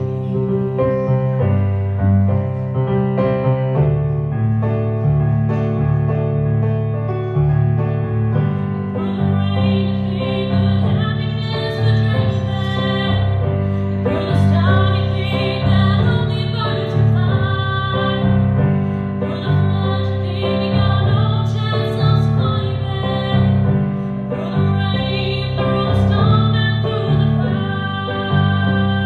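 A woman singing a slow ballad into a microphone while accompanying herself with steady chords on an electric keyboard.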